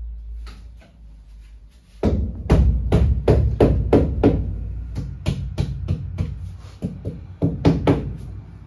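A floor tile being tapped down into its fresh mortar bed: a quick run of sharp knocks, about three a second, starting about two seconds in and stopping just before the end.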